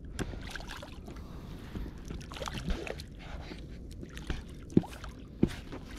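Water lapping and sloshing against the side of a small boat, with scattered light knocks and two sharper knocks near the end.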